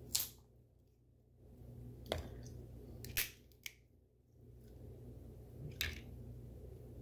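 Boiled shrimp being peeled by hand: a handful of short, sharp crackles and snaps of shell, loudest just after the start and about three seconds in, over a low steady hum.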